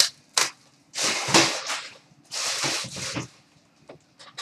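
Packaging of a box of hockey trading cards being torn open by hand: a sharp click, then two tearing sounds about a second long each, and a few light ticks near the end.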